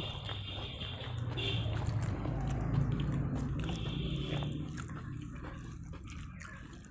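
Wet, squelchy eating sounds: rice and dal mixed by hand and chewed, with small irregular clicks and smacks.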